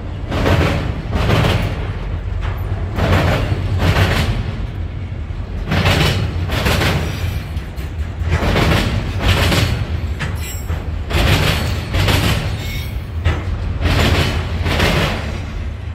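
Freight autorack cars rolling over a railroad diamond crossing: the wheels hit the crossing in a repeating clatter of loud knocks, in groups of two or three every second or two as each set of axles passes, over the train's steady low rumble.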